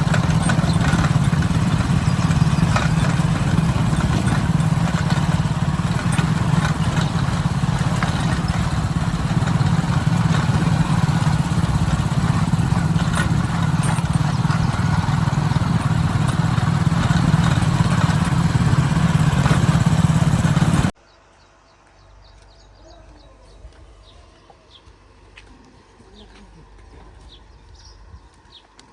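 Diesel engine of heavy earthmoving machinery running steadily; it cuts off abruptly about two-thirds of the way through, leaving quiet with faint bird chirps.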